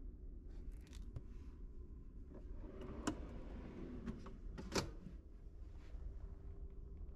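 Nightstand drawer and book being handled: light rustles and clicks, a brief scraping stretch about three seconds in and a sharp knock a little before five seconds in, over a steady low hum.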